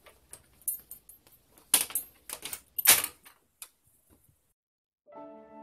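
Clicks and knocks of a replica Japanese sword being handled and laid down on a table, the two loudest knocks about two and three seconds in. Background music starts near the end.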